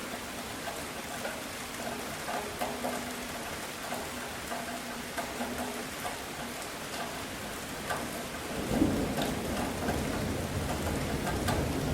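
Steady rain falling on a surface, with individual drops ticking through it. About two-thirds of the way in, a low rumble of thunder rolls in and keeps building.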